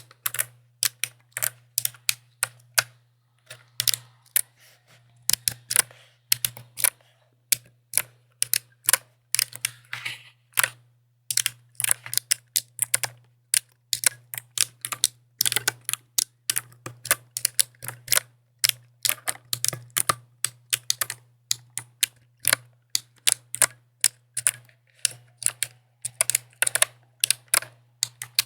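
Mechanical keyboard being typed on: an irregular run of sharp key clacks, several a second, with a few short pauses.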